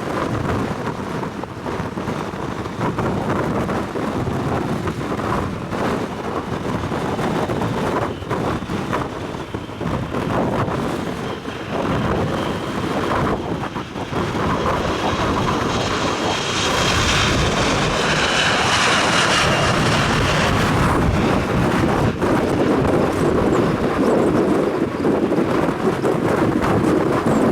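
Strong wind buffeting the microphone while an airliner's engines pass. Over a few seconds past the middle, a high whine swells and fades. After that, a steady, louder engine rumble builds.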